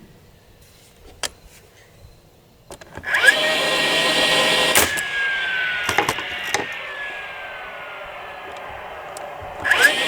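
A handheld power tool starts about three seconds in and runs steadily on wood, its pitch slowly sinking as it works, with a few sharp clicks. It eases off and starts up loudly again near the end.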